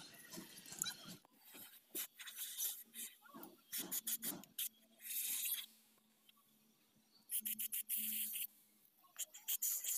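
Aerosol cleaner sprayed through a red straw into a removed throttle body, in short hissing bursts about halfway through and again near the end, with light clicks and scrapes of the part being handled between them.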